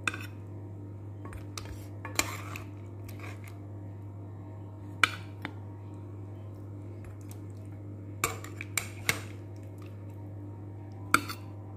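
Metal serving spoon knocking and clinking against a ceramic plate while pieces of chicken adobo are served, in scattered sharp clinks: one at the start, one about two seconds in, one about five seconds in, three close together around eight to nine seconds, and one near the end. A steady low hum runs underneath.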